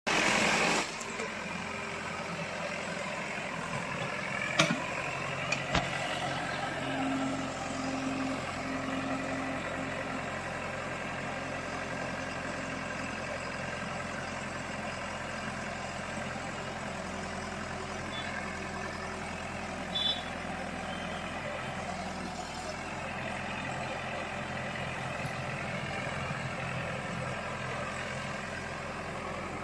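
JCB backhoe loader's diesel engine running steadily, with a loud burst in the first second and a couple of sharp knocks about five seconds in.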